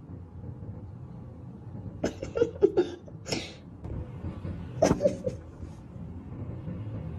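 Stifled, breathy laughter in short bursts, about two seconds in and again about five seconds in, over a steady low background rumble.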